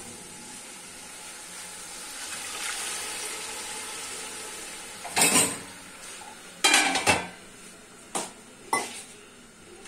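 Stainless steel pots and utensils clanking in a kitchen: a loud clatter about halfway through, a longer one a second and a half later, then two shorter knocks near the end, over a low steady hiss.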